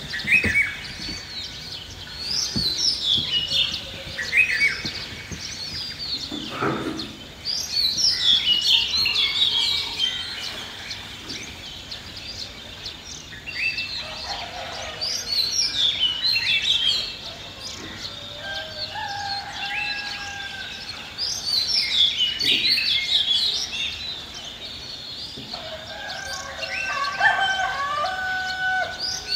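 Birds chirping and singing in repeated bouts of quick, falling notes, a few seconds each, with some lower, held call notes mixed in.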